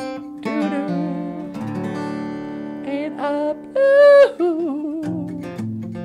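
Acoustic guitar playing with a voice singing long held notes, the loudest about four seconds in. Steady guitar strumming from about five seconds in.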